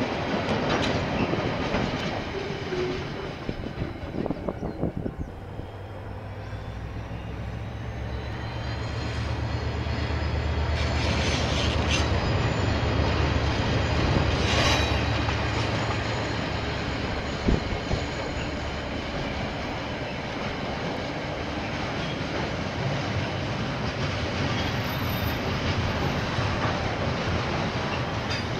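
KiwiRail freight train passing: wagon wheels clattering over the rail joints, with a low diesel engine drone that swells and fades over the first half. High-pitched wheel squeal comes and goes.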